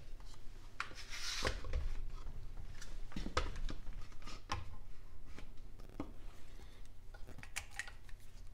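Scattered light clicks, taps and rubbing as a quick-release bar clamp is handled and set in place over the valve springs of an aluminium cylinder head.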